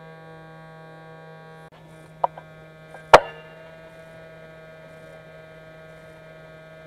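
A steady electrical hum, with a faint click a little after two seconds and one sharp crack about three seconds in: a shot from an SVD-style airsoft sniper rifle.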